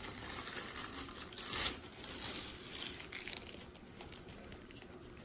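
Plastic bag crinkling and rustling as a pistol is pulled out of it. The loudest crinkle comes about a second and a half in, with fainter rustles after.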